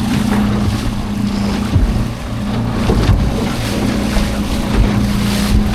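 Small boat's outboard motor running steadily, with wind buffeting the microphone and a few sharp thumps.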